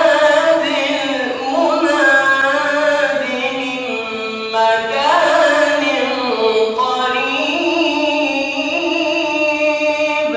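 Quran recitation in the melodic Egyptian tajweed style by a solo voice, with long held notes and melismatic ornaments that bend up and down in pitch.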